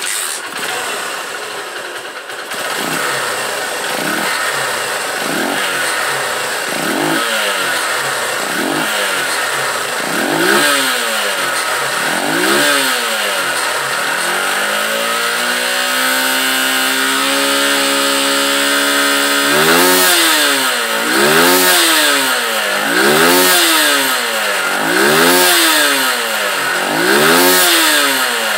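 Honda Titan 150 single-cylinder four-stroke motorcycle engine being revved again and again, each blip rising and falling smoothly. Midway it is held at a steady high rev for about five seconds, then it goes back to repeated blips. It revs without stumbling now that a smaller 115 main jet has cured the over-rich mixture behind its misfire.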